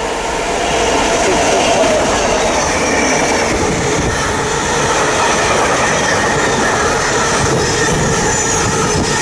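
Class 66 diesel locomotive and its ballast train passing close by, wheels and wagons rolling over the rails. The sound builds over the first second, then stays loud and steady.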